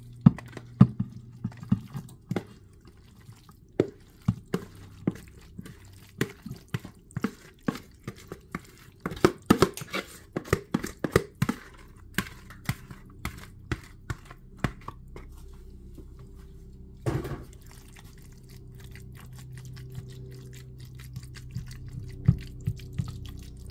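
A spoon scraping and knocking against a bowl as a thick, wet chicken-and-rice casserole mixture is scooped out and plops into a glass baking dish: an uneven string of short clicks and wet plops, thickest about ten seconds in, with one longer, louder scrape about two-thirds through.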